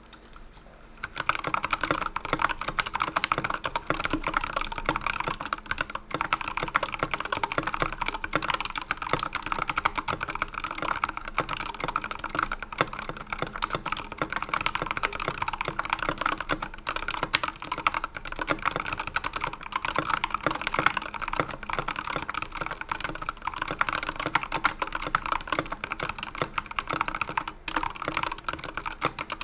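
Fast, continuous typing on a GK64XS mechanical keyboard with unlubed Tealios V2 linear switches and XDA-profile PBT keycaps, a dense stream of key clacks. The typing starts about a second in.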